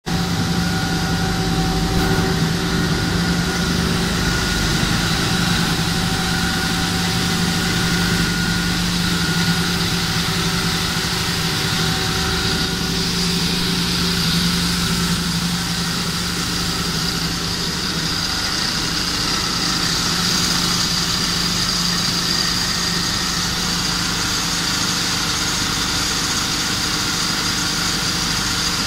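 PE film water-ring pelletizing line running: a steady hum of its motors with a constant hiss over it.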